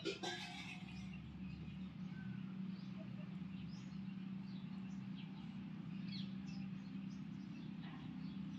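A low, steady hum with scattered short, high bird chirps over it, and a brief rustle right at the start.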